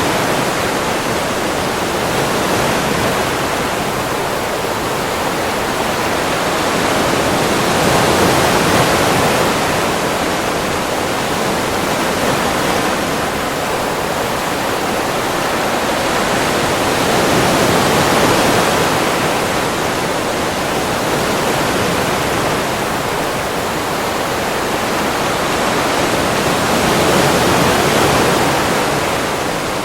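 Ocean surf: a continuous rush of breaking and washing waves, swelling slowly about every ten seconds.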